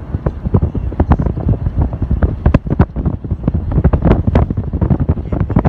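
Wind buffeting the phone's microphone: a loud low rumble broken by many irregular crackles.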